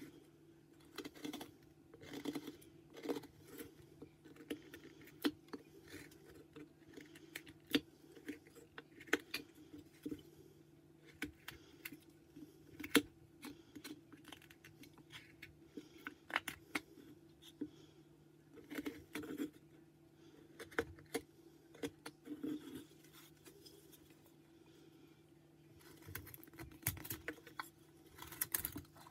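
Carving knife slicing into white pine, a run of short, irregular cuts and scrapes as the figure is whittled, coming faster near the end.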